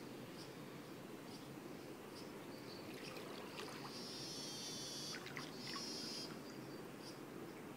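Faint movement of pool water around a floating body over a steady low background noise, with short high chirps every second or so and a longer run of high chirping about four seconds in.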